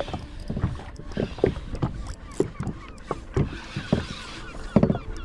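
Uneven clicks and knocks of fishing gear on a kayak while a hooked snapper is being played and reeled in.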